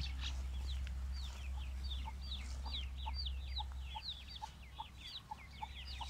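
Aseel chicks peeping: a steady stream of short, high, falling chirps, about four a second.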